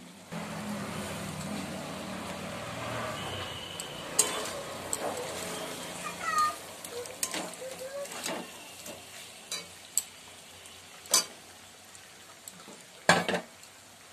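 Spiced chicken sizzling in a metal kadai as chopped tomato and onion are stirred in, with a long metal spatula scraping and knocking against the pan several times. The sizzle is strongest in the first few seconds, after which the spatula strikes stand out.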